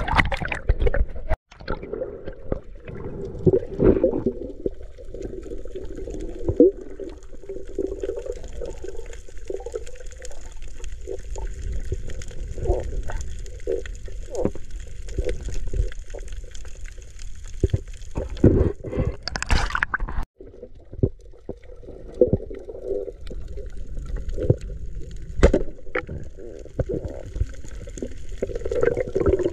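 Muffled water sounds from a camera underwater: gurgling and sloshing with many short clicks and knocks. The sound drops out briefly twice, about a second and a half in and about twenty seconds in.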